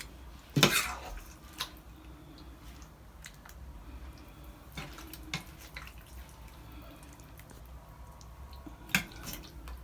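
A spoon ladling sauce-coated fried fish fillet pieces onto a plate: a few scattered light knocks, the clearest about half a second in and near the end, over a faint low hum.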